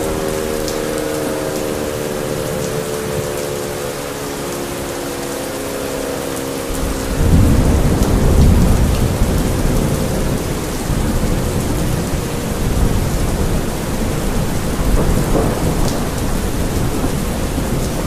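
Air raid siren sounding several tones at once, slowly falling in pitch and fading out over the first several seconds, over steady rain. A loud rumble of thunder breaks in about seven seconds in and keeps rolling.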